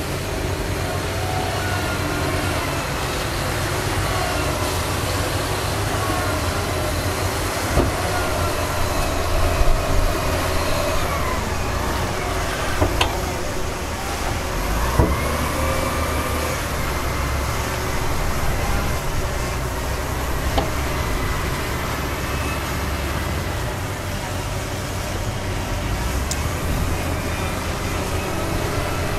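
Heavy earthmoving machinery running with a steady low engine rumble, broken by a few sharp knocks.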